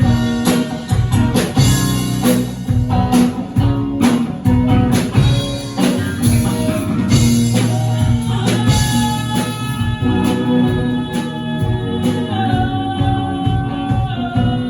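A band playing a song: singing over guitar with tambourine and other percussion keeping a steady beat.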